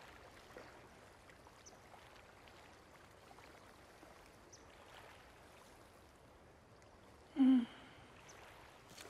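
Faint steady background hiss. About seven and a half seconds in, an animated snowman character makes one short, low dejected vocal sound.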